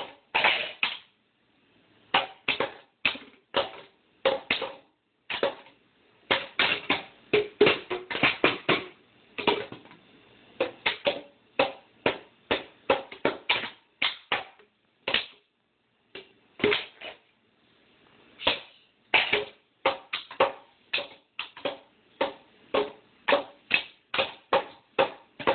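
Someone tapping out a beat: a long string of sharp knocks in uneven clusters, stopping briefly a couple of times and starting again.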